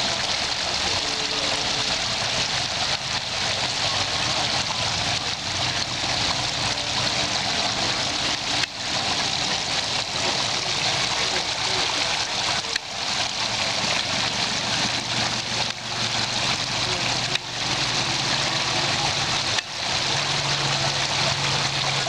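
Water from a handmade model waterfall pouring and splashing steadily into a small trough, a continuous hiss of falling water.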